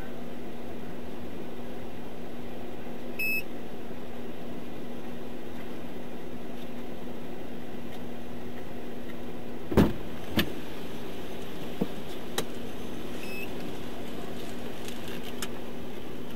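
Steady hum inside a parked, running patrol car, with a constant low tone. A short electronic beep sounds about three seconds in and again near thirteen seconds. A few sharp knocks come about ten seconds in, the first the loudest.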